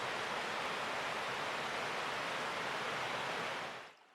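Steady rush of a mountain trout stream's flowing water, fading out near the end.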